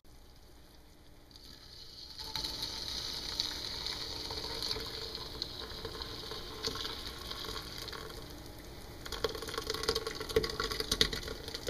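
Ground acorn mash and tannin-stained water pouring from a saucepan through a plastic mesh strainer into a bowl, draining off the tannins after boiling. A steady splashing trickle starts about two seconds in and grows heavier near the end.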